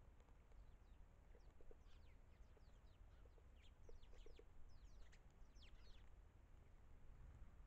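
Faint calls of small wild birds: many quick, thin, high notes that slide downward, in a busy run through the middle of the clip, over a steady low rumble.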